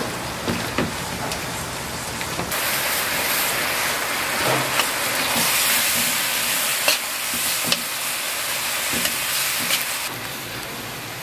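Sliced onion, carrot and greens sizzling in a large wok while a metal spatula stirs and scrapes them, with scattered short scrapes against the pan. The sizzle grows louder and hissier about two and a half seconds in and eases near the end.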